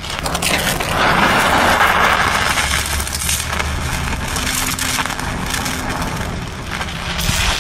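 Multiplaz 3500 plasma welding torch running steadily with a constant hiss and crackle, welding a mild-steel gusset onto a cast iron band saw arm with filler wire.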